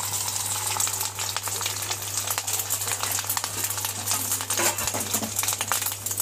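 Beaten egg frying in hot oil in a pan: a steady, dense sizzle and crackle of spitting oil, with a steady low hum underneath.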